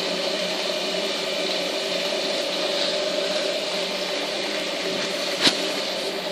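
Steady mechanical whirring hum, with one sharp click about five and a half seconds in.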